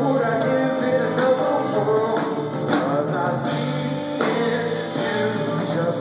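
Live band music: a male singer over electric bass, drums and keyboard.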